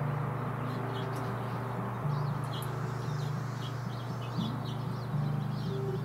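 Small songbirds chirping in many short, high calls, over background music with sustained low notes that change every second or two.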